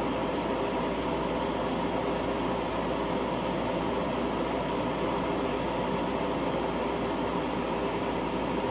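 Condenser fan of a self-contained R290 refrigeration unit running steadily, an even whir of air with a faint hum. The compressor is not running: it is stalled and waiting for its overload to reset.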